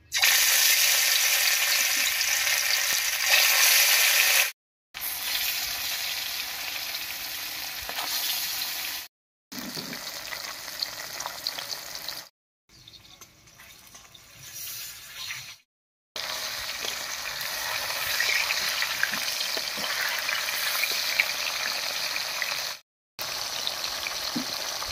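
Chitol (clown knifefish) steaks frying in hot mustard oil: a steady crackling sizzle, loudest in the first few seconds as the pieces go in, broken by several abrupt cuts where the sound drops out.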